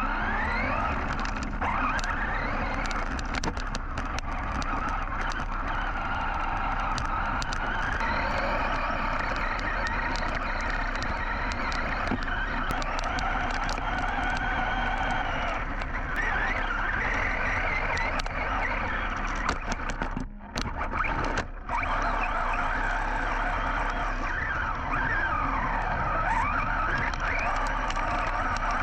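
Team Associated Rival MT10 RC monster truck driving over a dirt trail: its brushless motor and drivetrain whine, rising and falling with the throttle, over the rough crunch and ticking of tyres on dirt and gravel. The sound drops out briefly twice about two-thirds of the way through.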